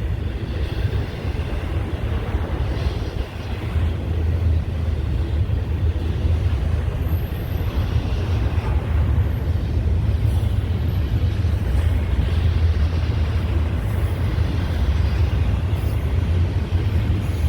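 Intermodal freight train rolling past, a steady low rumble from the moving cars.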